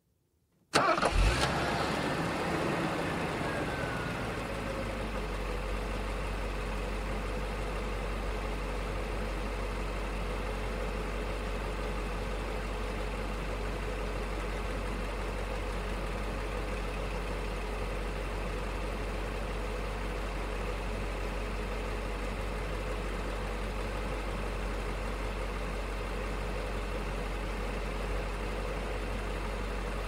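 Mercedes-Benz 500 SEC's 5.0-litre V8 idling. It comes in suddenly about a second in, louder and higher at first, then settles within a few seconds to a steady, even idle.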